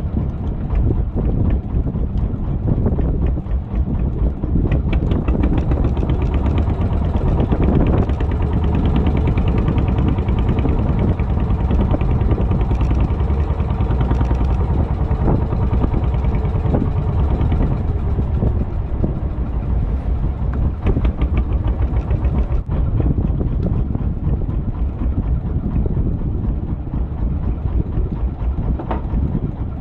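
A wooden fishing boat's engine running steadily, with waves splashing against the hull.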